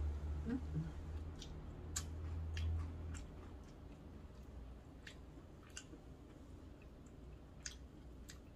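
Close-miked chewing of cold buckwheat noodles, with scattered sharp wet mouth clicks. A low hum fades out about three seconds in.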